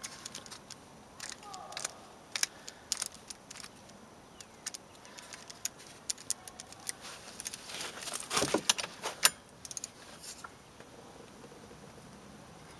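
Sharp metallic clicks and clinks of a ratcheting torque wrench and socket on a snowmobile's primary drive clutch bolt as it is tightened to 60 foot-pounds. The clicks come irregularly, thickest and loudest about eight to nine seconds in.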